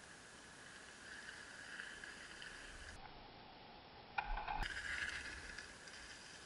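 Dirt-jump bike's freewheel hub buzzing faintly as the bike coasts in, then a sharp thud a little after four seconds as it lands the jump, followed by a louder burst of tyre noise and hub ticking as it rolls past.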